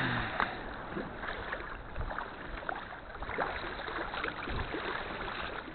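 Sea water lapping and splashing around a kayak, with small irregular splashes.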